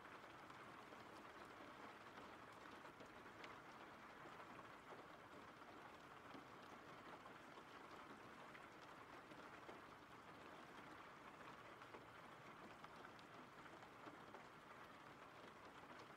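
Faint, steady rain: an even hiss with a few soft drop ticks.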